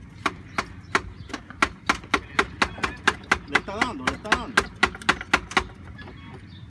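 A stick knocking rapidly on metal under the car, about three strikes a second, stopping near the end: the motor is being beaten to get the broken-down car to start.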